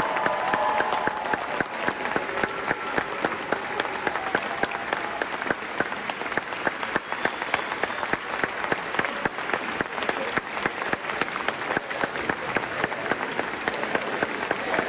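Concert-hall audience applauding: steady, dense clapping.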